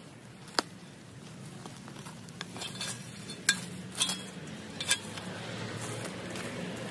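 Steel shovel blade working into mulched soil and shrub roots, with sharp scraping clicks about half a second in and a few more between three and five seconds in, over a steady low hum.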